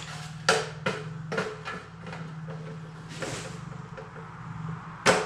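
Scattered clicks and knocks of hand tools and metal parts being handled while a dryer's heating element assembly is taken apart, over a steady low hum. A sharp, louder knock comes near the end.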